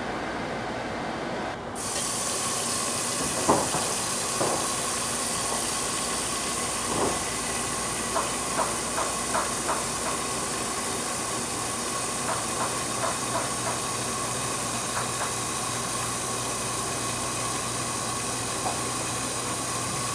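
Kitchen tap running into a non-stick pot in a stainless steel sink, filling it with water: a steady hiss that starts about two seconds in, with a few light clicks along the way.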